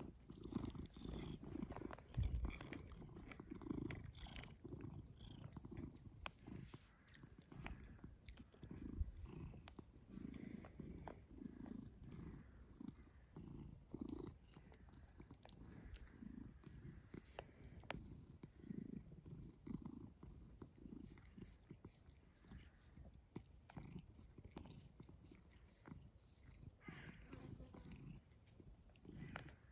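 Tabby cat purring on a person's lap, close to the microphone, in low pulses that come and go every second or two.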